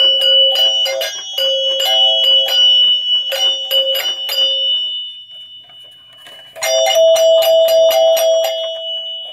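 Pinball chime box's metal chime bars clinking and ringing as they are wiggled: a rapid run of light metallic strikes with clear tones ringing on. The strikes come in two bursts, with a pause from about five seconds in and a second burst starting about six and a half seconds in.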